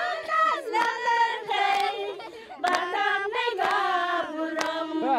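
Group of voices cheering and calling out together, with scattered hand claps, right after a sung chorus ends.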